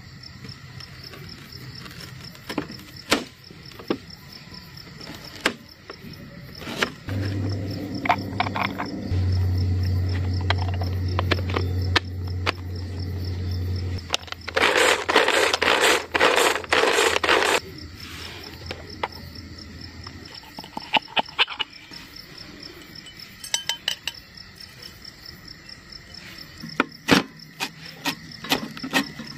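Knife tapping and cutting on a plastic chopping board as ginger, garlic and green chillies are chopped, with crickets chirping steadily. About halfway through, cloves rattle hard in a shaken lidded plastic bowl for about three seconds. A low steady hum runs through the middle part.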